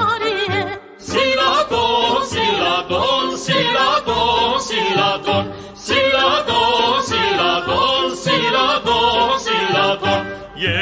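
Music: singing with heavy vibrato over a regular beat, with a brief break about a second in.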